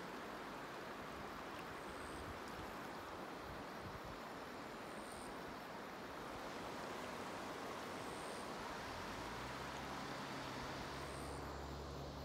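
Steady rushing of a shallow, clear river flowing over a stony bed. A low steady hum comes in about nine seconds in.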